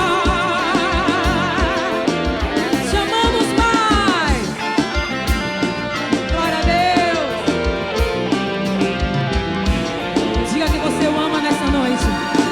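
A live forró band playing an instrumental passage: a steady drum beat under sustained melodic lines, some with vibrato and a few falling pitch glides.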